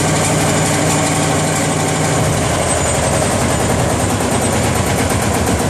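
Vintage diesel tractor engine idling steadily, freshly started after a decompression-lever start and smoking from its vertical exhaust stack.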